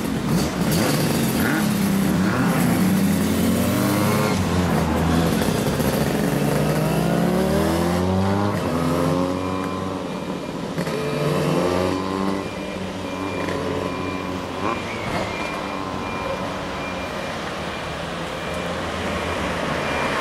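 Motorcycles, a 1997 Yamaha FZ400 with an Asahina Racing aftermarket exhaust and a Kawasaki KH400, pulling away and accelerating through the gears. The engine note rises again and again, dropping at each shift, then fades into street traffic. From about nine seconds in, a row of short high beeps repeats evenly.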